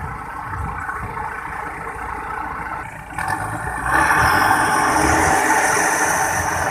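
Heavy farm machinery engine running under load, then revving up hard about four seconds in. It gets much louder, with a rising hiss and whine. This is the work of pulling a stuck rice combine harvester out of paddy mud.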